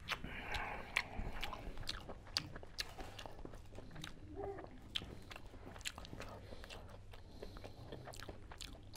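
Close-miked chewing of a mouthful of curried boiled egg: soft wet mouth clicks and smacks, coming irregularly.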